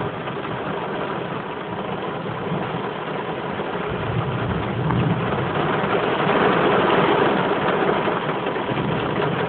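Heavy rain pouring down in a thunderstorm, a steady hiss that grows louder about halfway through.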